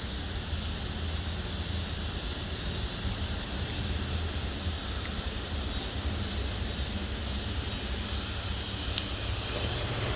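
Steady low mechanical hum under an even background hiss, with a few faint ticks.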